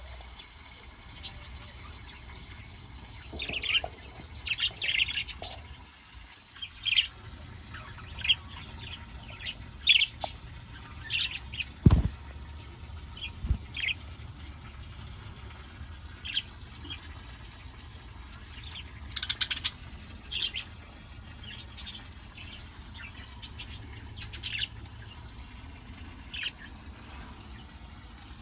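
Pet budgerigars and lovebirds chirping in short, scattered calls over a low steady hum, with a sharp thump about twelve seconds in and a softer one shortly after.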